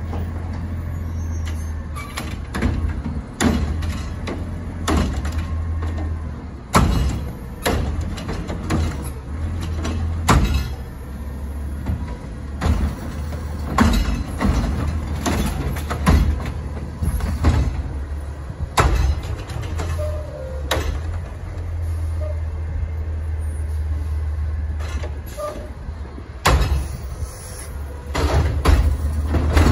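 Autocar ACX garbage truck's engine running steadily while the Curotto-Can's arm grabs and tips recycling carts, with repeated sharp clanks and bangs of carts and recyclables hitting the can.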